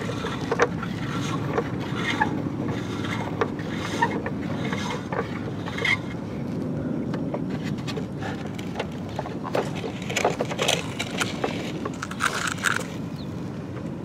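Toy crane's winch clicking and ratcheting as its bucket is let down on the cable into a hole in the sand: irregular clicks over a steady low rumble.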